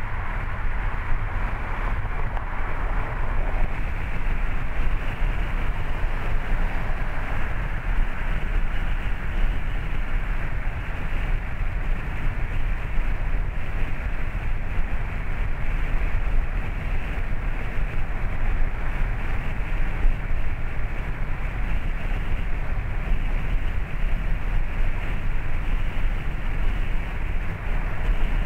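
Steady road noise of a car driving at city speed: a constant low tyre rumble mixed with wind noise.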